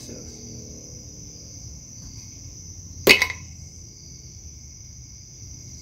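A single sharp pop about three seconds in: the outboard's lower-unit gear housing knocked against a hand to jar the last gear loose from its bearing.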